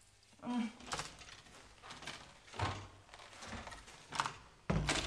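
A string of short knocks and rustles, then a heavy door thud near the end.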